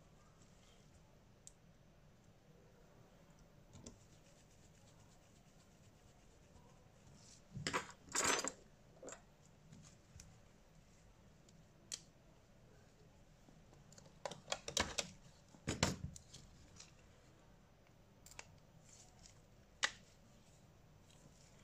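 Small hand-handling noises of a smartphone repair: two short clusters of scraping and clicking, one about a third of the way in and one past the middle, with a few isolated sharp clicks between and near the end.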